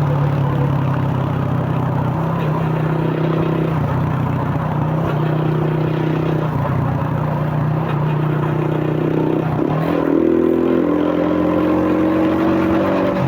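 2001 Suzuki Fiero's single-cylinder four-stroke engine, breathing through a K&N pod air filter, running steadily under way. Its note holds mostly level with small steps, and about ten seconds in it dips briefly and picks up again.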